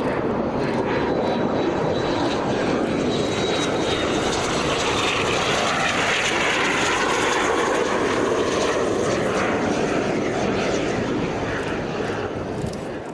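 Jet engine of a BAE Hawk T1 trainer, a Rolls-Royce Turbomeca Adour turbofan, on landing approach. It makes a steady loud jet noise with a thin high whine, loudest and brightest as it passes about halfway through. It eases off near the end as the jet touches down on the runway.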